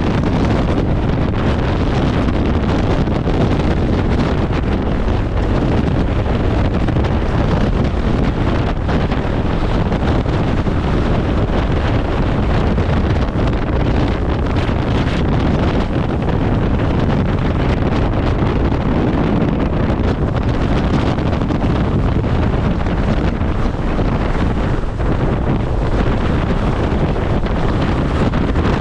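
Very strong mountain wind, over 35 m/s, buffeting the microphone: loud, steady wind noise with no letup.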